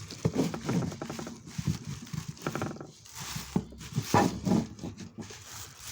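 Irregular clicks, knocks and rustling from a dismantled Fram oil filter's parts being handled and pulled apart by hand.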